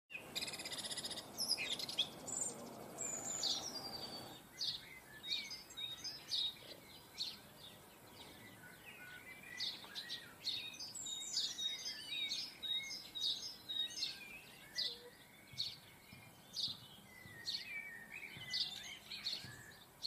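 Small garden songbirds chirping and twittering, many short high calls overlapping, with a steady hiss underneath for the first four seconds.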